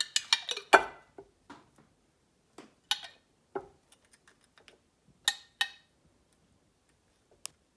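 Metal spoon clinking and scraping against a glass jar of marinara sauce as sauce is scooped out: a quick run of clinks in the first second, then scattered single taps every second or two.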